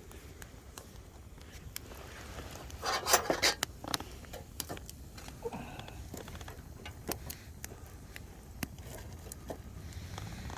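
Firewood burning with scattered sharp crackles and pops, and a louder burst of crackling and rustle about three seconds in.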